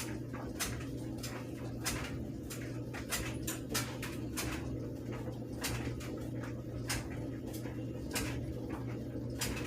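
Objects being handled: irregular sharp clicks and taps, about one or two a second, over a steady low hum.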